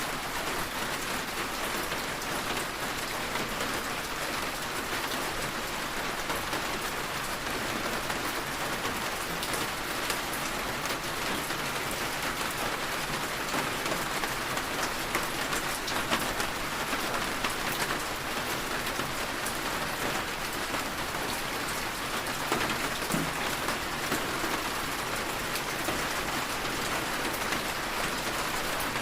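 Steady rain falling, with a dense patter of individual drops on a surface.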